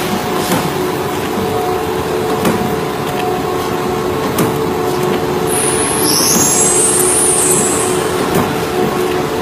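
Workshop machinery running with a steady hum and a few light knocks; a high hiss, like air being released, comes in about five and a half seconds in and lasts a couple of seconds.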